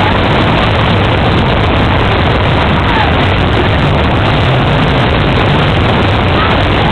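Fairground ride in motion: a loud, steady rushing noise over a low machine hum, with a few faint short gliding cries.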